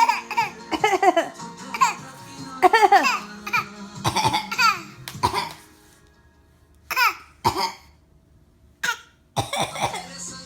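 An infant laughing and squealing in short, high-pitched bursts that fall in pitch. Near the end come four short, separate coughs, the mother's cough and the baby's imitation of it.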